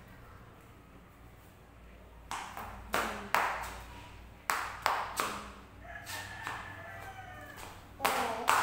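A run of sharp, irregularly spaced claps, starting about two seconds in after a quiet stretch. A rooster crows faintly in the background a little past the middle.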